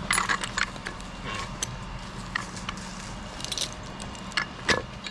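A steady low engine hum, with irregular sharp clicks and knocks over it; the loudest knock comes near the end.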